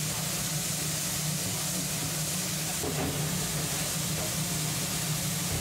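Steady hiss with a constant low hum from a commercial gas burner under a pan of spicy ramen sauce coming up to a simmer.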